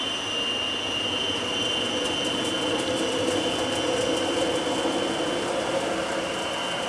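Tyne and Wear Metrocar electric train pulling away from a station platform. A steady high whine runs throughout over a lower running hum, which swells about halfway through.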